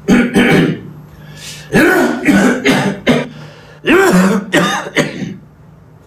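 Repeated coughing in short groups of two to four harsh, throaty coughs, with brief pauses between the groups.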